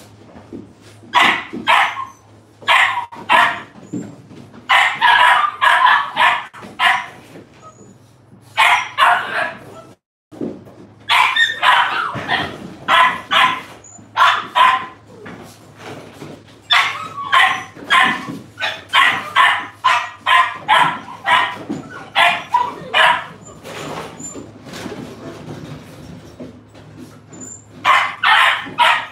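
Young dogs yapping and barking in quick clusters of short, sharp barks while playing tug with rope toys, over a low steady hum. The sound cuts out briefly about a third of the way through.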